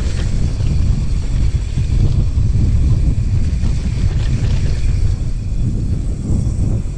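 Wind buffeting the microphone over the rumble and rattle of a mountain bike rolling on a dirt trail.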